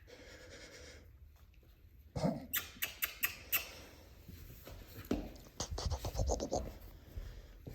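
Six-week-old mini Australian Labradoodle puppies playing and scuffling. A short puppy vocal sound comes about two seconds in, then a quick run of sharp clicks and scratches, and a burst of scuffling knocks and thumps from about five seconds in.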